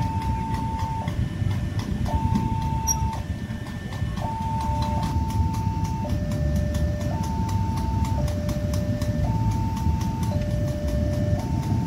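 Railway level-crossing warning alarm on a new WANTECH LEN crossing gate, sounding a two-tone electronic signal that alternates a higher and a lower tone about a second each, with a rapid ticking beneath, warning that a train is approaching. A low rumble of the approaching train runs underneath.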